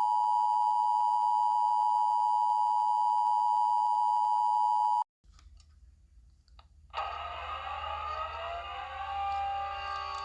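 Emergency Alert System attention signal: a steady, loud two-tone beep that cuts off suddenly about five seconds in. A low hum follows, and about seven seconds in the alert's broadcast audio begins over it.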